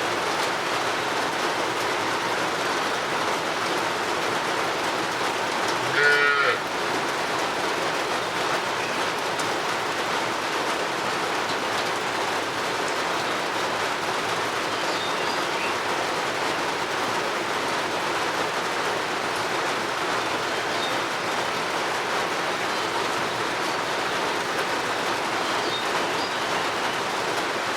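Steady rain, an even hiss, with a single short moo from a cow about six seconds in. A few faint high chirps from birds appear later.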